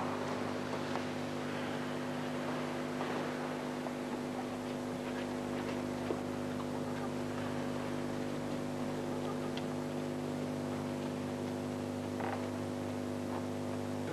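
A steady low hum with a hiss over it, with a few faint taps scattered through it; the hum cuts off abruptly at the end.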